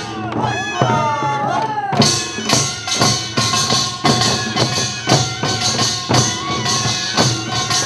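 Korean farmers' band music (nongak) played live: percussion struck on a steady beat with a bright metallic shimmer, under a wavering, gliding melody line.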